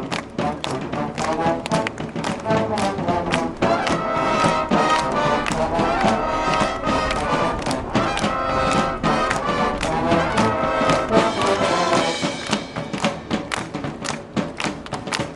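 Marching band playing: brass chords over a steady drumbeat, the brass dropping out about twelve seconds in and leaving mainly the drum strikes.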